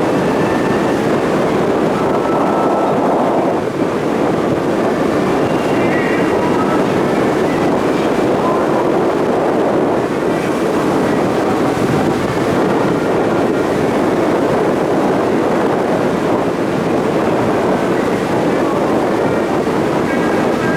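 Steady, loud engine drone and rushing wind and water aboard a passenger ferry under way.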